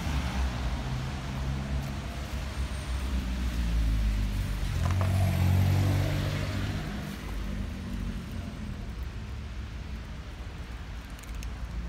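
Low rumble of a motor vehicle engine running nearby, swelling to its loudest about halfway through and then easing off.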